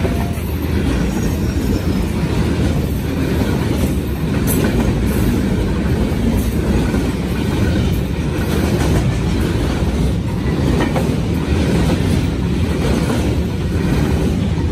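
Freight train of container flat wagons passing close by: a steady heavy rumble of steel wheels on the rails, with occasional clacks as the wheels cross the rail joints.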